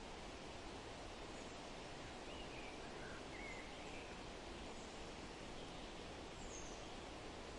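Forest ambience: a faint, steady hiss of wind in the trees, with a few faint, short bird chirps about two to four seconds in and another, higher one near the end.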